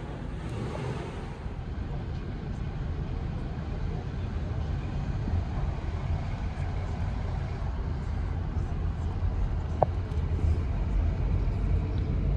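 Car interior noise while driving: a steady low rumble of engine and road that grows slightly louder, with a single sharp click about ten seconds in.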